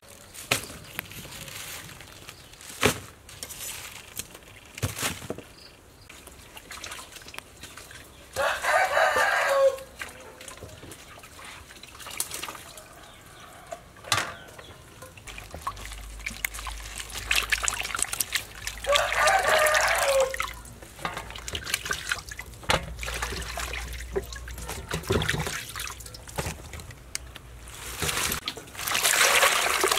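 A rooster crowing twice, each crow about a second and a half long, with light clicking and clattering of plastic baskets and vegetables being handled; water starts running near the end.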